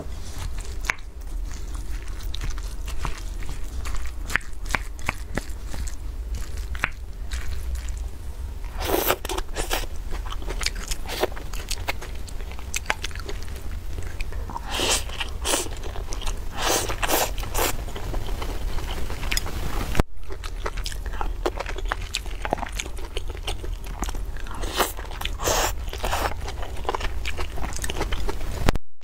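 Close-miked chewing and crunchy bites of a rice bowl topped with fried pieces, egg and shredded potato, in irregular clusters, with a spoon scraping and clicking in the bowl. A steady low hum runs underneath.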